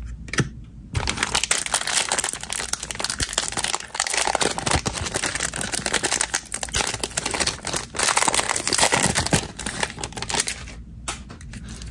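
Plastic wrapper of a 2022 Donruss football fat pack crinkling and tearing as it is pulled open by hand. It makes a dense crackle that dies away near the end.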